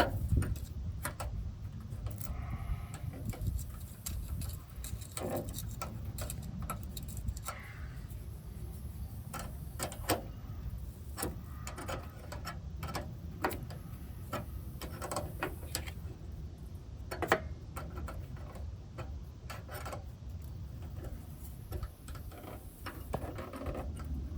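Hand tools working on a truck's brake line fitting: irregular metal clicks, taps and small clinks, with a louder knock near the start and another about two-thirds of the way through, over a low steady rumble.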